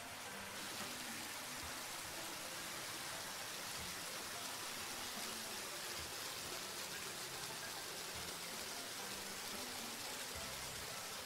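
Water spraying from a hose nozzle in a steady hissing jet, washing down a vehicle.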